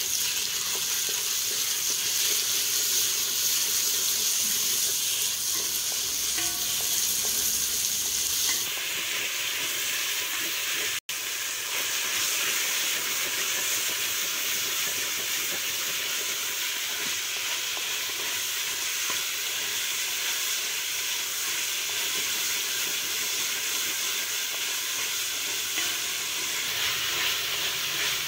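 Minced chicken sizzling as it fries in hot oil in a metal pot, stirred with a wooden spatula. The sizzle is a steady hiss, with a brief cut-out about eleven seconds in.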